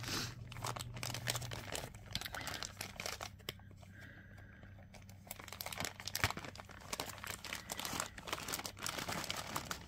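Clear plastic zip-top bags crinkling as they are handled, a steady run of small crackles with a quieter stretch in the middle.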